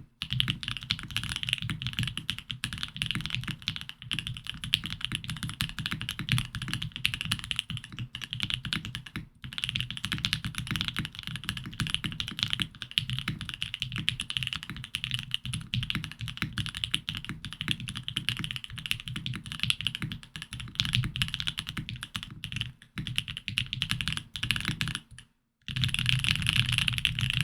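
Fast, continuous typing on a Think 6.5 v2 mechanical keyboard with Marshmallow switches lubed with 205g0, the keystrokes coming in a dense stream. It pauses briefly about nine seconds in, and again for a moment near the end before a last quick burst.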